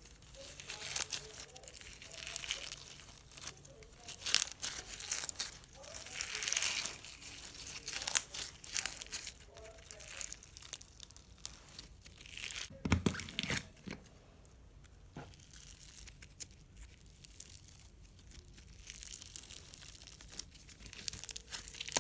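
Clear slime loaded with foam beads being squeezed and stretched by hand, crackling and popping in spells. There is a brief low thump about 13 seconds in, then a few quieter seconds before the crackling picks up again.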